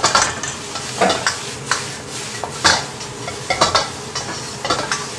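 A metal wok spatula scraping and turning cucumber strips with dried shrimp in a round-bottomed wok, about a stroke a second, over a steady sizzle of frying.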